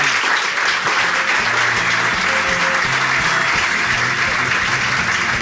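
Live audience applauding at the end of a stand-up show, with music coming in underneath about a second and a half in.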